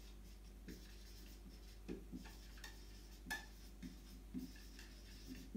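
Marker pen writing on a whiteboard: faint, short squeaks and taps, one stroke after another.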